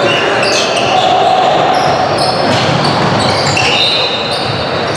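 Live basketball game sound in a gym hall: a basketball bouncing on the court, voices and chatter echoing in the hall, and many short high-pitched squeaks of sneakers on the floor.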